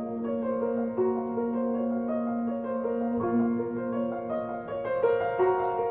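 Instrumental piano passage from a gently paced folk ballad, held notes changing about once a second, with no singing.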